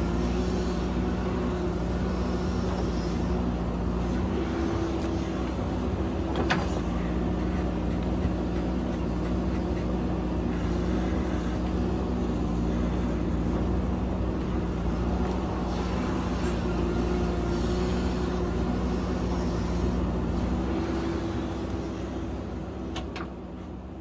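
JCB backhoe loader's diesel engine running steadily under load while the backhoe bucket digs and scrapes at rock, its pitch shifting a little with the work. Two sharp clanks, one about six seconds in and one near the end; the sound fades out at the end.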